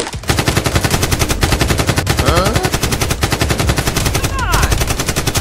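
Rapid automatic gunfire, a continuous stream of shots dubbed in as a sound effect, with a voice crying out briefly about halfway through and again near the end.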